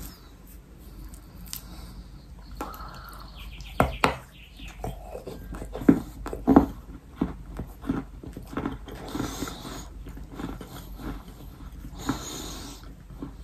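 Crunchy bites and chewing of a dry baked clay cookie made from yellow sandy clay dipped in clay paste: a sharp crack about four seconds in and two louder crunches around six seconds, then a run of smaller crunching chews.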